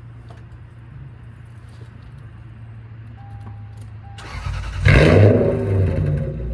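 Two short beeps, then a Lexus GS430's 4.3-litre V8 with a catless exhaust cranks briefly and fires on a warm restart. It flares loudly as it catches, a little over four seconds in, then settles into a deep, rumbling idle.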